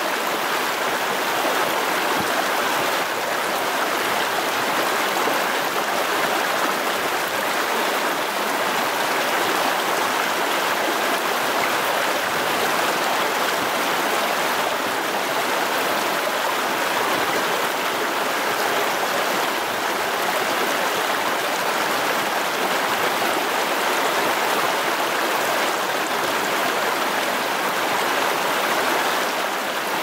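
A stream running: a steady, even rush of water with no breaks or separate splashes.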